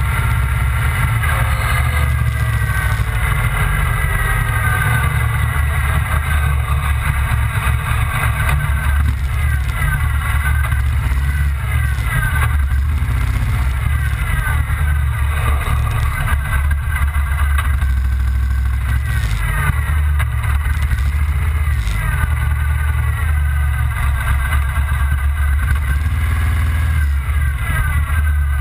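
Motorcycle engine running at low riding speed, its pitch rising and falling again and again with the throttle, over a steady deep rumble.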